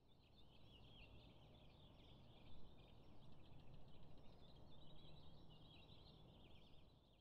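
Faint outdoor ambience: many birds chattering in a continuous high twitter, over a low steady rumble.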